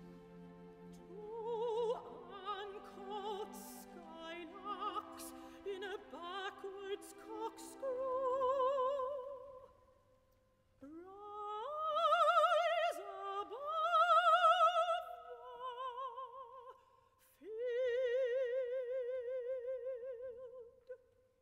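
Solo operatic soprano singing softly, with wide vibrato, over quiet held orchestral chords. About ten seconds in there is a pause, and then she sings rising phrases with louder, long held notes that fade away near the end.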